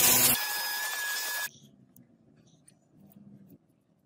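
Belt grinder sanding a small workpiece pressed against its running belt: a loud grinding rush with a thin steady whine that cuts off abruptly about a second and a half in. After that there is only a faint low hum and a few small clicks.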